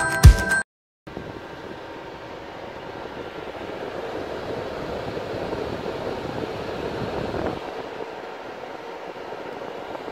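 Background music stops abruptly, then the fan of a homemade Peltier mini air conditioner runs with a steady airflow noise.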